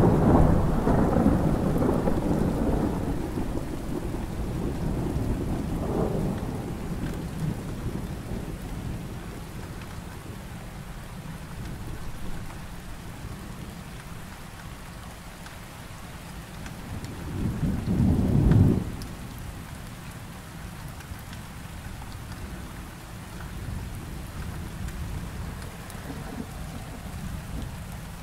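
Thunderstorm: steady rain under low rolling thunder. A peal that has just broken dies away over the first few seconds, and a second loud peal of thunder builds and ends sharply a little past halfway.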